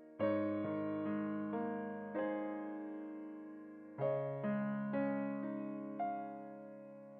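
Background music: slow electric piano chords, each struck and left to fade, in two phrases.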